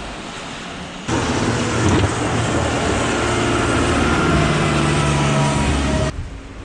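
Road traffic close by, a large motor vehicle's engine running with a low steady hum and fainter higher tones. It starts suddenly about a second in and cuts off suddenly near the end.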